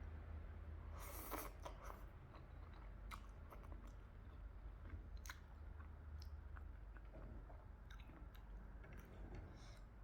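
Close-miked chewing and biting of food, with scattered small wet clicks of the mouth and one louder crunch about a second in.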